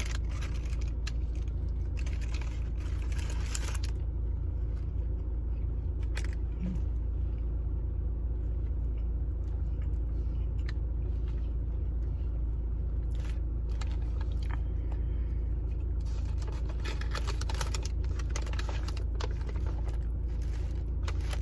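A steady low hum, with clusters of short crackles and clicks near the start and again near the end from eating and handling food packaging.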